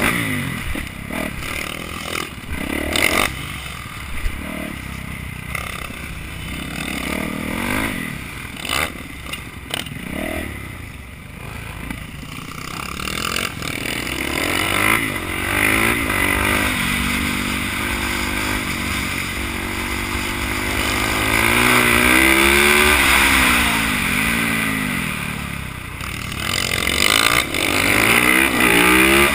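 Supermoto motorcycle engine at race pace, heard close up from the rider's helmet. Through the first half, on the dirt section, its note is broken by knocks and clatter. Then on pavement it revs up through the gears in repeated rising sweeps, falls away for a few seconds and pulls hard again near the end.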